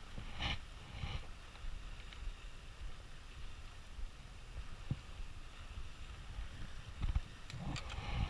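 Wind buffeting an action camera's microphone: a low, uneven rumble, with brief rustles about half a second and a second in and a few sharp clicks near the end.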